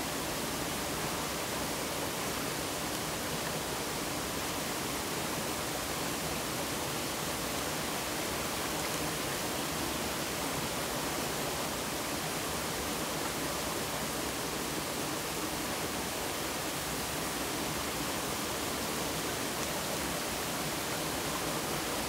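Water of a mountain valley stream rushing steadily, an even, unbroken hiss.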